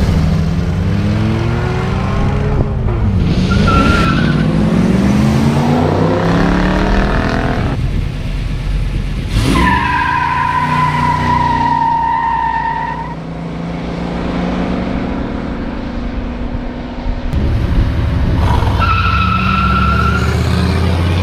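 Pontiac Firebird and Trans Am muscle cars accelerating hard off a drag-strip start line one after another: engines revving with rising pitch and tyres squealing in high, steady screeches, the longest squeal about ten seconds in and another near the end.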